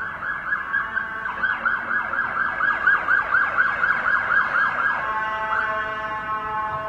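Emergency-vehicle siren on the street in a fast yelp, rapid falling wails about four a second. About five seconds in it switches to a steadier, held wail.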